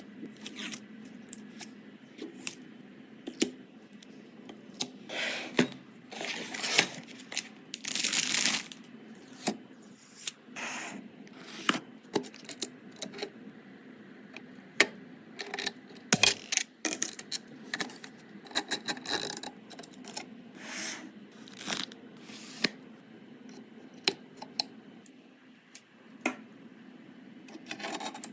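PC case and parts being handled during assembly: scattered sharp clicks and taps of plastic and metal, with a few longer rustling scrapes.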